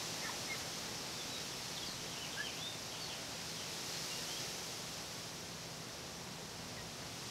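Quiet backyard ambience: a steady outdoor hiss with a few faint, short, high bird chirps through the first half.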